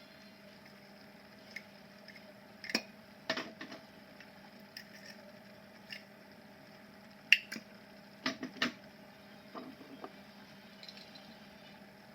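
Scattered soft knocks, clicks and squishy handling sounds of kitchen utensils and food, with a cluster of sharper knocks about two thirds of the way through, over a steady low hum.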